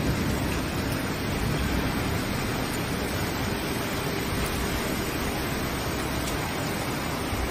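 Fast-moving floodwater rushing along a street: a steady, unbroken rush of water noise.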